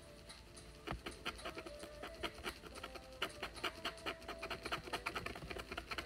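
Pointed wooden stick scratching the black coating off a scratch-art board in quick, short strokes, several scrapes a second.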